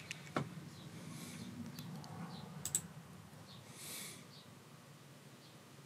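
Two faint sharp clicks of keys or buttons, about two seconds apart, confirming the BIOS save-and-exit, over a steady low hum.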